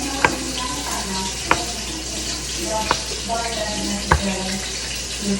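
A knife cuts through firm tofu onto a cutting board, striking it four times about a second and a quarter apart, over a steady hiss.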